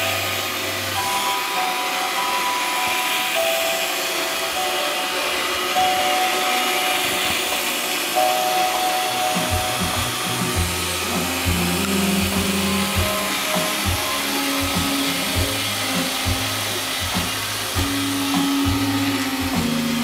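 iRobot Roomba 560 robot vacuum running on carpet: a steady whir from its vacuum motor and brushes as it drives about. Music plays alongside, with short stepping notes and, from about halfway, a lower line.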